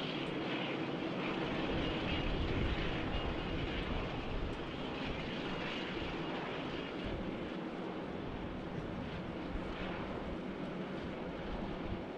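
Jet airliner engines running, a steady rushing noise with a faint high whine, loudest a couple of seconds in and then slowly easing. Gusts of wind buffet the microphone.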